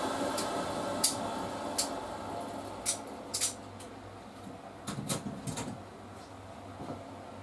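Scattered light clicks and knocks, a dozen or so in small clusters, over a steady low hum and a background noise that fades away during the first few seconds.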